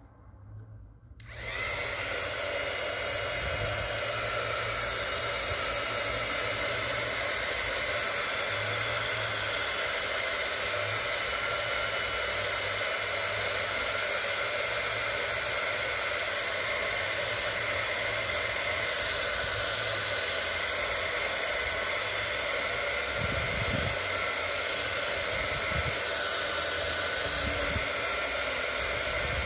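Electric hot-air blower switched on about a second in and running steadily: fan whir and rushing air, used to heat and soften a bent plastic brake pin so it can be straightened. A few soft low thumps of handling come in the second half.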